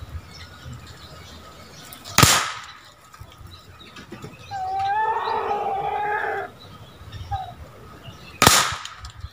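Two sharp shots from a PCP air pistol, about six seconds apart. Between them comes a long pitched call lasting about two seconds.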